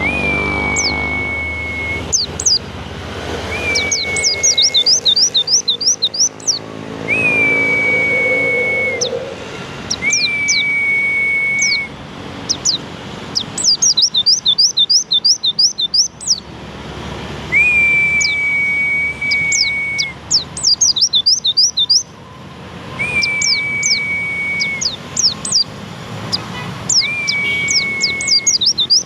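Pleci (white-eye) songbird singing: bursts of rapid, high, falling chirps alternating with a long level whistle, about a second and a half each, that comes again every few seconds.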